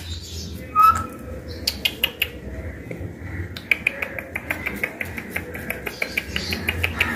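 Pet green parakeet in a wire cage: one short chirp about a second in, then a run of quick light clicks that speed up to about five a second in the second half.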